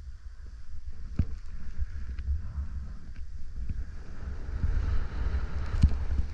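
Wind rumbling on the microphone while skiing, with skis hissing over snow and a few sharp knocks. The sound grows louder after about a second.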